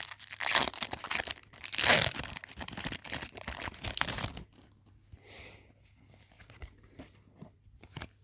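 Foil Pokémon booster pack wrapper crinkling and being torn open, loud and crackly for about four and a half seconds, then fading to quiet scattered small clicks and rustles.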